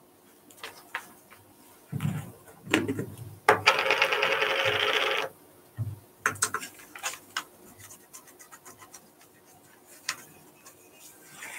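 Handling noises of paper and a pen: a couple of dull thumps, then a loud rasping scrape lasting nearly two seconds, followed by scattered light clicks and taps.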